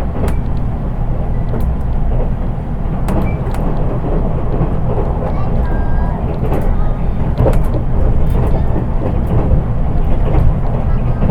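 Interior running noise of a JR East 183 series electric train, recorded in its unpowered KuHa 183 driving trailer car: a steady low rumble of wheels on rail with scattered clicks from the track. Because the car has no traction motors, little beyond wheel and track noise is heard.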